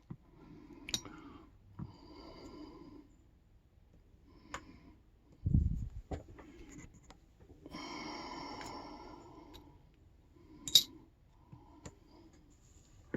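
Small metallic clicks and taps of padlock parts being handled, the sharpest about eleven seconds in, with a low bump about five and a half seconds in. A person's breathing through the nose comes and goes between them.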